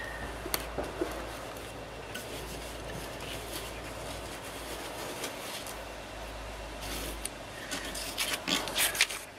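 A razor-blade circle cutter on a wooden block being turned around its nail pivot, the blade scraping and rubbing as it cuts a small hole in a paper disc. A few sharper clicks and scrapes near the end as the tool is lifted and handled.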